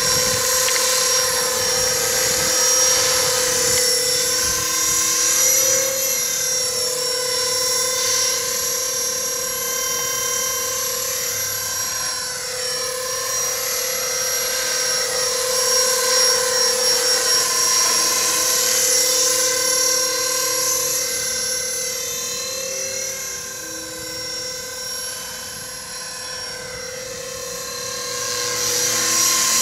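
A 450-size electric RC helicopter hovering and flying low. Its motor and gears give a steady high whine over the rotor, and the pitch wavers slightly. It grows fainter about three quarters of the way through as it moves off, then louder again near the end.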